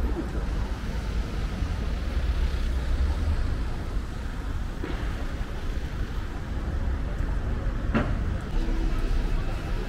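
City street traffic: a steady rumble of passing vehicles, with two short knocks about five and eight seconds in.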